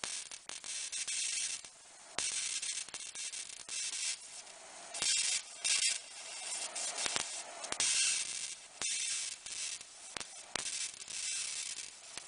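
High-voltage arc drawn from a flyback transformer driven by a single MJE13009 transistor, hissing and crackling in uneven spells with sharp clicks between.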